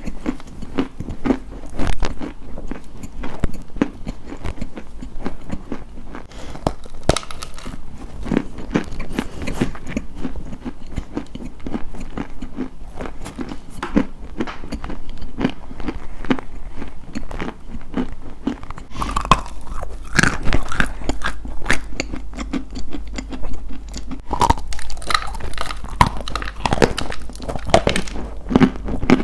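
Close-up crunching and chewing: a dense, irregular run of crisp cracks and crackles as something brittle is bitten and crushed, growing busier about two-thirds of the way through.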